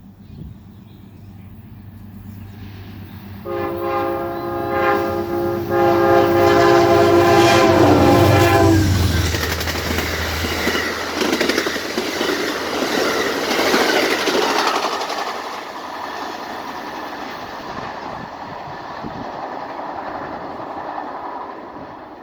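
An Amtrak GE P32AC-DM diesel locomotive approaches with its engine running and sounds its horn in two blasts, the second longer and dropping in pitch as it passes. The passenger cars then rush by with loud wheel-on-rail noise that fades away.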